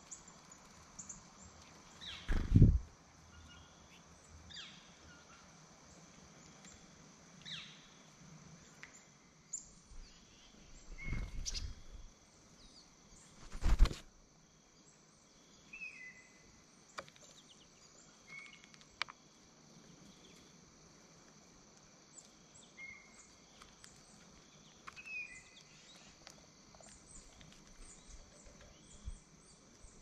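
Birds at a platform feeder tray: a few loud, short knocks, about two seconds in, around eleven seconds and around fourteen seconds, as birds land on and peck at the tray. Faint, short high bird calls come and go throughout.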